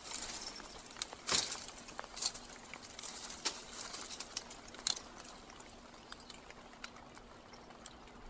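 Dry twigs of a bare shrub crackling and snapping as a cat clambers through the branches: a quick run of sharp cracks in the first five seconds, the loudest about a second and a half in, then only sparse light ticks.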